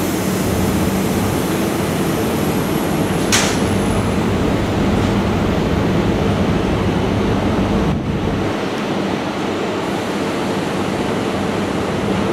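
A Soviet VL10 DC electric locomotive stands with its machinery running: a steady hum and whir. A single sharp click comes about three seconds in, and the deepest part of the hum eases slightly about eight seconds in.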